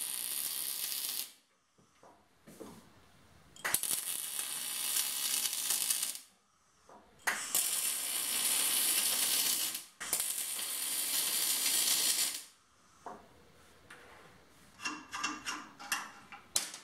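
MIG welding arc crackling on steel tube and flat bar, in four bursts of about one to two and a half seconds each with short pauses between. Near the end, a quick run of sharp metal clicks and taps.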